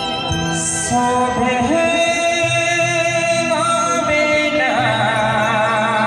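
Live, amplified timli band music: a long-held lead melody that begins to waver with vibrato near the end, over a low bass line.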